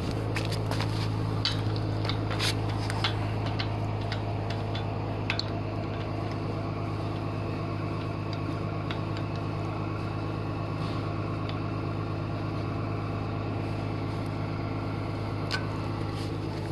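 A wrench clicking against a tricycle pedal spindle as the pedal is tightened onto the crank arm: a few sharp metallic clicks, most of them in the first five seconds. Under it runs a steady low hum.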